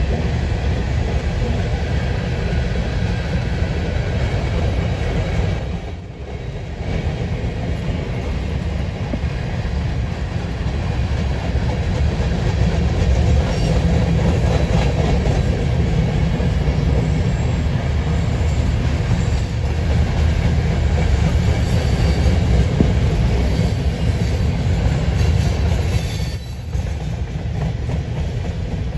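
Freight train of covered hopper cars rolling past: steel wheels running on the rails in a steady, low rumble, which dips briefly about six seconds in and again near the end.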